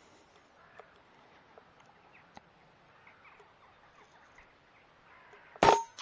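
A single shot from a Daystate Delta Wolf PCP air rifle near the end, a sharp crack with a brief ringing tone, followed a moment later by a faint knock.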